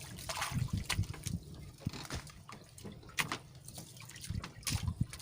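Water lapping and dripping around a small fishing boat, with scattered small knocks and clicks.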